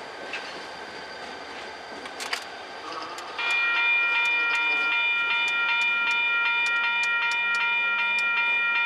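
A railroad crossing warning bell starts ringing about a third of the way in, a loud, fast, evenly repeated ding, and keeps on as the crossing gate arm comes down. Before it there is only the low running sound of diesel locomotives moving off along the track.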